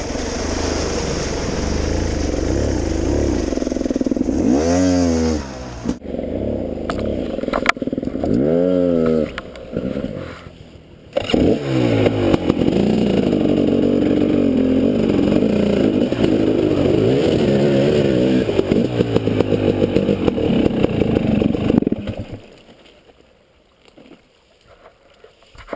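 300 cc two-stroke dirt bike engines running, revved three times in quick blips and then held at a steady pace as a bike crosses the shallow creek. The engine sound drops away sharply near the end.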